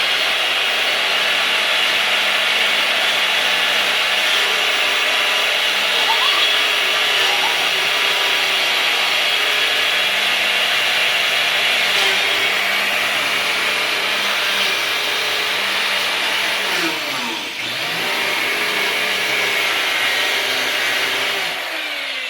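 Electric power tool motor running continuously with a steady whine, cutting into a hollow porch column. About 17 seconds in its pitch sags and climbs back, and it eases off near the end.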